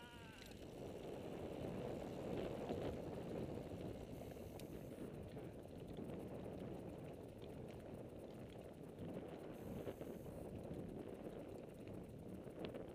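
Mountain bike rolling fast down a dirt singletrack: a steady rumble of knobby tyres on dirt and gravel, with the frame and components rattling and clicking over the bumps.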